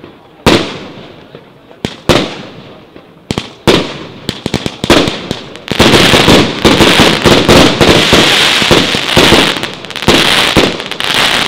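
60-shot, 1-inch firework cake (Triplex TXB744 'Bestia') firing: a few separate shots, each a sharp bang that dies away. From about six seconds in, a fast, unbroken volley of bangs runs until it stops at the end, the cake's closing salvo.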